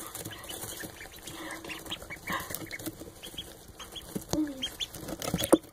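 Indian Runner ducklings peeping: many short, high chirps from several birds overlapping, with a sharp tap a little before the end.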